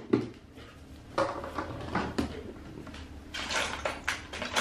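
Irregular short clicks and scrapes of hand-held foot-care instruments being worked and handled, a few scattered sounds with no steady rhythm.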